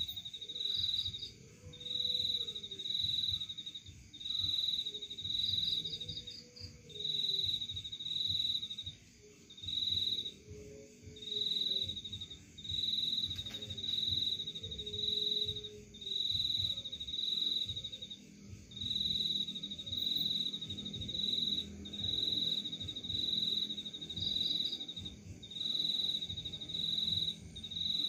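Cricket chirping steadily: short, high trilled chirps repeating about once a second, now and then with a longer gap.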